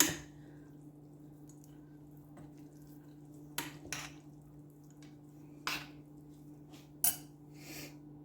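Chopsticks tossing soft, sauce-coated noodles in a bowl, with a knock at the start and a few short clicks and scrapes against the bowl, over a steady low hum.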